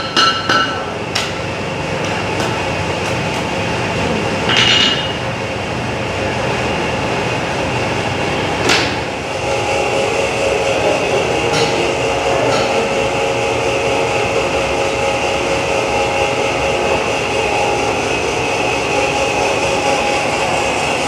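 Blacksmith's hammer striking hot iron on an anvil, with ringing blows at the start and single strikes about a second and four seconds in. From about ten seconds in, an old flat-belt-driven metal lathe runs steadily with a hum of several tones.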